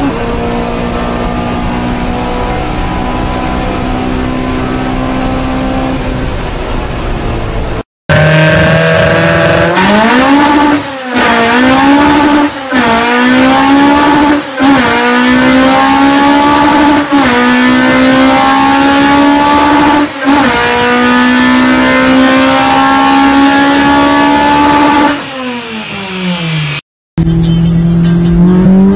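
High-revving Honda four-cylinder engine: first pulling steadily at high rpm, then free-revved through individual throttle bodies, held high with several quick throttle lifts and climbs back before dropping away. Near the end another run starts low and rises.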